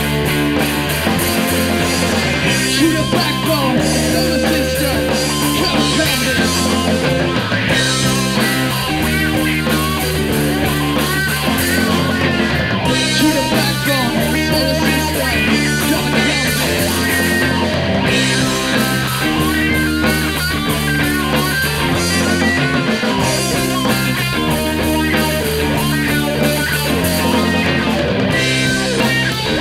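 Rock band playing an instrumental passage: electric guitars over a drum kit, steady and loud throughout.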